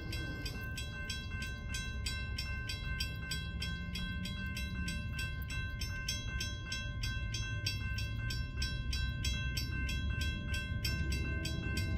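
Railroad grade crossing bell ringing with rapid, even strikes over a low rumble from the approaching train.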